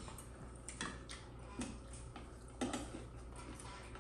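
Scattered light knocks and clicks of kitchen food preparation, about five separate taps spread over a few seconds, a couple of them with a dull thud.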